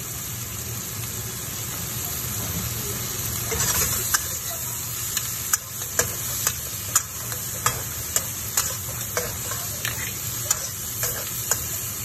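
Razor clams with dried chilies, garlic and ginger sizzling in a hot wok with a steady hiss. From about four seconds in, a metal wok spatula strikes and scrapes the wok in sharp clanks, one or two a second, as the food is stirred.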